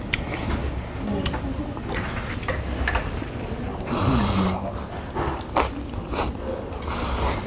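People eating at a table: spoons and chopsticks clicking against bowls and a metal tray, with chewing and a loud slurp about four seconds in and another near the end.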